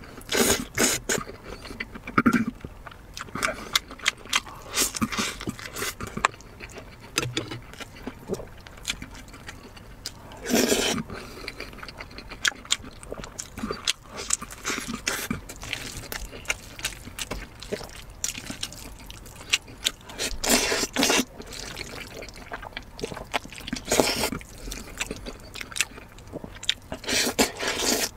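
Eating sounds: biting and chewing of braised pork belly and a dumpling, heard as irregular smacking clicks with a few louder bursts, and noodles slurped near the end.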